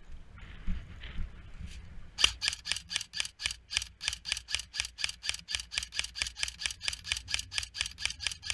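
Airsoft gun firing a steady string of sharp shots, about four a second, starting about two seconds in.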